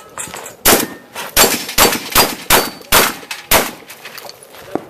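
A string of seven quick gunshots from a long gun, about two a second, that stops a little past halfway.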